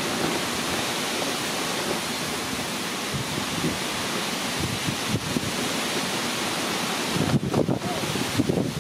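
Steady rushing outdoor noise, with low, uneven buffets of wind on the microphone near the end.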